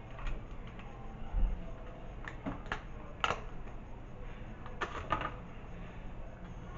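Scattered clicks, taps and a low thump of takeout food containers and lids being handled and opened.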